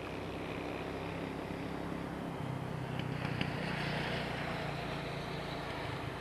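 Two BB 69000 diesel locomotives in multiple unit moving a train of ballast hopper wagons, their engines running with a steady low drone. The drone grows louder from about two seconds in, with a higher hiss rising alongside it, and two short clicks come about halfway through.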